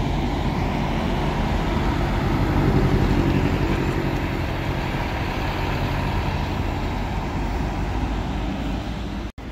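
Diesel engine of an intercity coach running close by as it moves through the bus station, a little louder around two to three seconds in. The sound drops out for a split second near the end.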